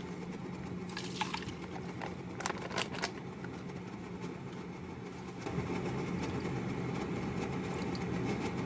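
Kitchen sounds at a flat electric cooktop: a steady low hum with a faint hiss, a few light clicks and taps in the first three seconds, and the hum getting a little louder about halfway through as beef short-rib soup heats in the pan.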